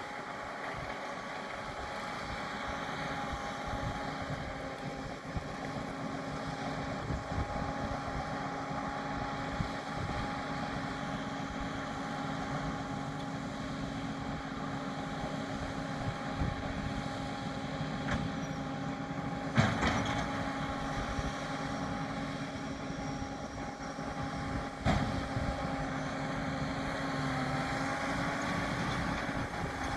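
New Holland T7 245 tractor running steadily while working a round baler, a continuous machine whine over low rumble with wind on the microphone. Two sharp knocks come about two-thirds of the way through and again about five seconds later.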